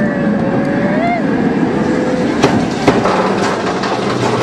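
A rider's long, wavering held cry over the rumble of the roller-coaster train. About two and a half seconds in come two sharp clanks, then a run of rapid clattering as the inverted coaster's train starts up the chain lift hill.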